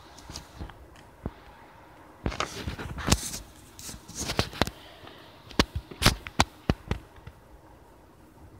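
Close handling noise: an irregular series of sharp taps and clicks with a little rustling, as fingers grip and move a small plastic toy figure right at the microphone.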